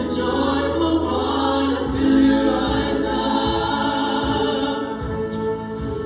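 Show choir singing into handheld microphones, several voices together over a live backing band. A held low bass note stops about two seconds in, and low beats follow.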